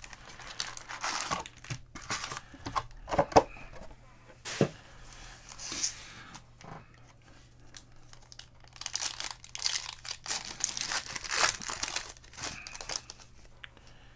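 Foil trading-card packs of 2020 Panini Contenders Draft Picks football being handled and torn open by hand, the wrapper crinkling and crackling in bursts, loudest about nine to twelve seconds in. A few sharp clicks come about three and four and a half seconds in.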